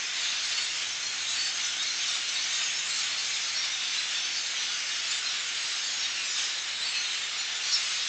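A large flock of migrating birds calling together overhead, many overlapping calls merging into a dense, continuous din, recorded on a cell phone.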